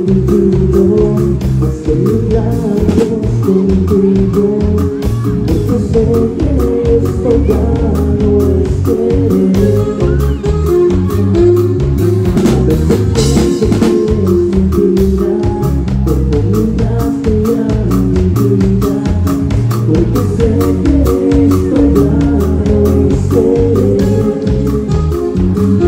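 Live Mexican ranch-dance band playing loud through a PA system, with a drum kit keeping a steady beat under guitar.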